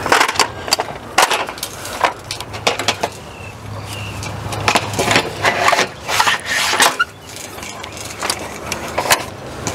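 Clanks, knocks and rattles of an aluminium awning roller tube and its end-cap spring assembly being handled and pulled out of the tube, a string of sharp irregular knocks.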